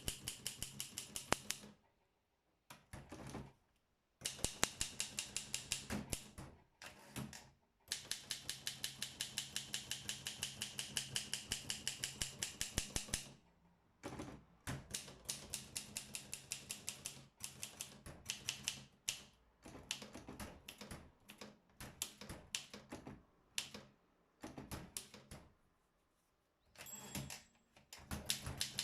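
Olympia SM7 manual typewriter being typed on: runs of sharp keystrokes at about six a second, broken by short pauses. There is a brief high ring near the end.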